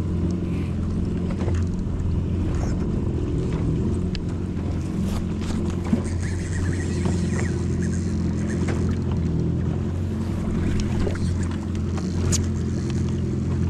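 Yamaha WaveRunner jet ski engine idling with a steady low hum, and a single brief knock about six seconds in.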